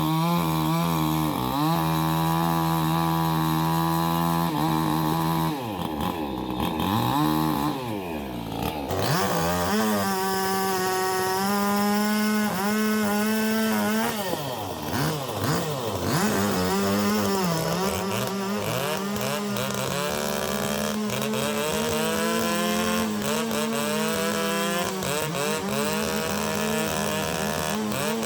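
Chainsaw running at high speed while cutting into a tree. Its engine pitch holds steady in the cut, then twice drops and climbs back as the saw is eased off and revved again.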